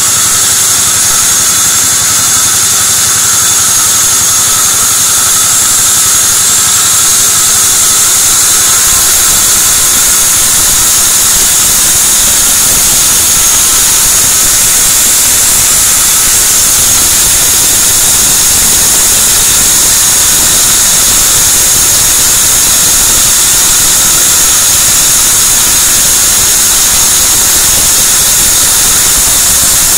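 Sawmill band saw ripping a beam of white teak (gmelina) lengthwise: a loud, steady hiss of blade through wood with a high steady whine on top.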